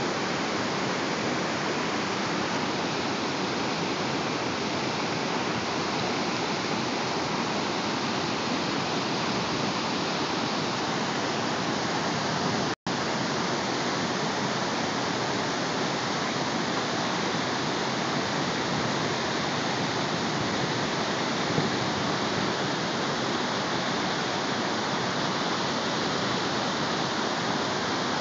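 Steady, even rushing of water, as from a waterfall or fast stream, that briefly cuts out for an instant a little before halfway.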